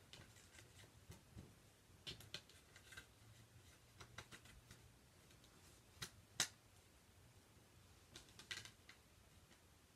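Faint scattered clicks and taps of a steelbook case being handled, with a sharper click about six and a half seconds in.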